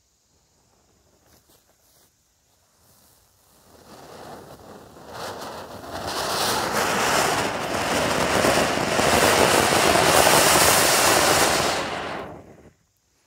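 Anar fountain firework spraying its sparks against a brick: a loud rushing hiss that swells over a couple of seconds and holds steady, then cuts off suddenly near the end as it burns out.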